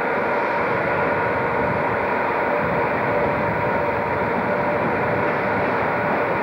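Electric locomotive standing at a platform with its equipment running: a steady hum with a constant whine, unchanging throughout.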